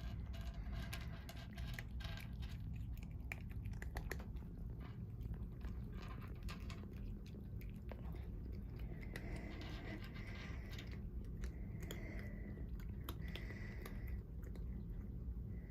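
A cat chewing and crunching treats: many small irregular crunches and clicks over a steady low hum.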